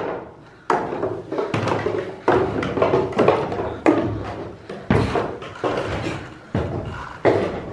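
Footsteps climbing a flight of stairs, a steady, even thud about every 0.8 seconds, nine or so steps in all.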